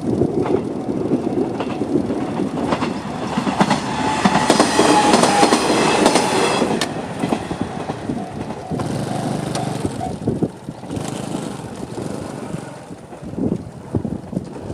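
Two-car JR KiHa 110 series diesel railcar passing close by, its wheels clicking over the rail joints. It is loudest about four to seven seconds in, then fades as it draws away.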